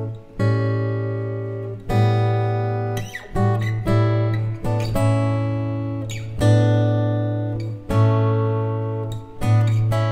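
Background music: an acoustic guitar strumming chords, one struck about every second and a half and left to ring out.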